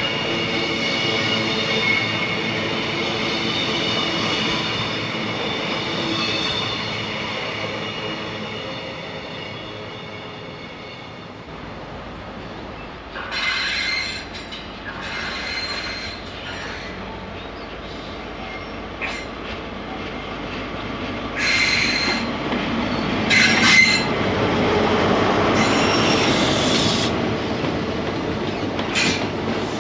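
Train running past on the line: a steady hum that fades over the first ten seconds, then repeated short bursts of high-pitched wheel squeal and a louder rush of wheels on rail in the second half.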